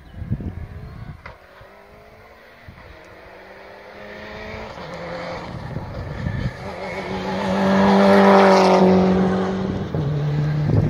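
Rally car approaching at speed and passing close, its engine revving hard and growing louder to a peak about eight seconds in, the pitch stepping between gears and dropping near the end.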